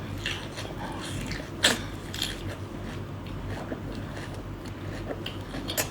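Close-up eating sounds: biting and chewing braised small white shrimp, with scattered small clicks and a sharper crack about a second and a half in.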